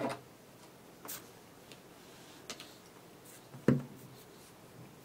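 Fly-tying scissors snipping the waste end of the tying thread: a few short sharp clicks over quiet room tone, with a louder tap a little past halfway.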